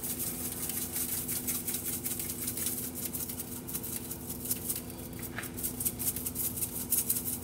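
Seasoning shaken from a spice shaker onto raw chicken wings: fast rattling ticks of the granules, many a second, over a steady low hum.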